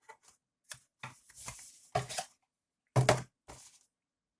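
Unboxing packaging handled by hand: a scatter of short taps and knocks with a brief rustle about a second in and a sharper knock about three seconds in, as the cardboard box and its contents are moved.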